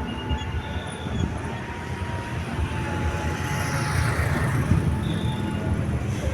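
Bus engine running with a steady low rumble and road noise, a hiss swelling and fading about three to five seconds in; no telolet horn melody is sounding.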